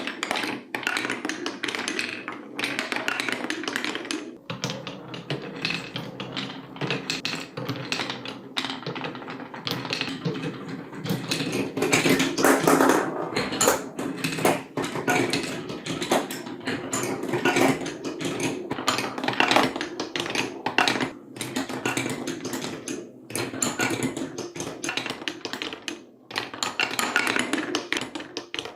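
Marbles rolling and clattering along a TrixTrack-style marble run, a dense, continuous patter of small clicks and taps, louder in a couple of clusters partway through.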